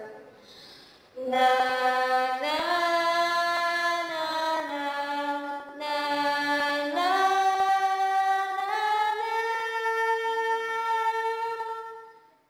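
Background vocal music: long held sung notes that step from pitch to pitch, starting about a second in, with a short break midway and a fade near the end.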